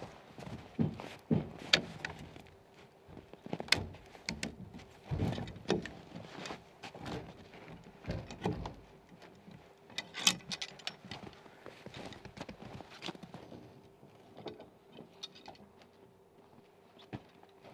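Irregular clinks, knocks and scrapes as a strap and its metal hook are handled and taken off a log, with a few sharper knocks among them.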